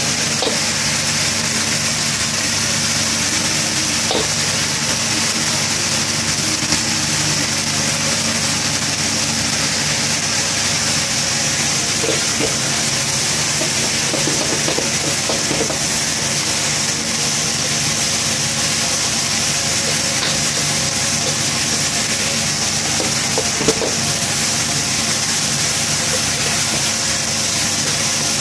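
Stir-fry in a steel wok: greens sizzling and steaming in hot oil over a gas wok burner running at high flame, a steady hiss with a low hum beneath. A metal ladle scrapes and knocks against the wok now and then.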